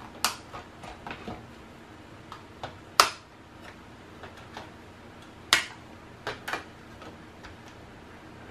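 Plastic snap-fit clips of an LED flashlight's housing clicking as the two shell halves are pried apart. About half a dozen sharp clicks, the loudest about three seconds in and another about five and a half seconds in.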